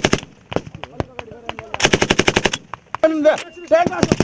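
British Army L7 general-purpose machine gun (GPMG), fitted with a yellow blank-firing adaptor, firing short automatic bursts of about twelve rounds a second: one burst ends just as the sound begins, a few single shots follow, and a second burst of about ten rounds comes near the middle. Brief shouts come near the end.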